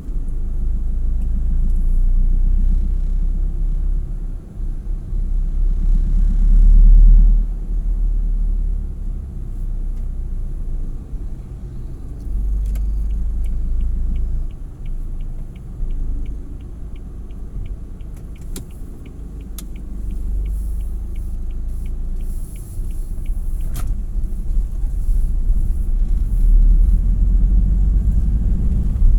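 Low, uneven rumble of a vehicle on the move. For about ten seconds in the middle there is a fast, regular ticking.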